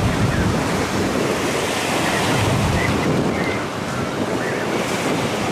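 Strong wind buffeting the microphone over the wash of choppy sea waves, a steady rushing noise.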